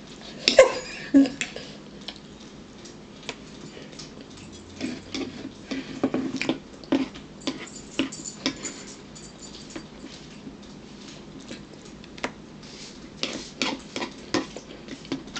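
Fork clinking and scraping on a ceramic dinner plate, in short, scattered clicks.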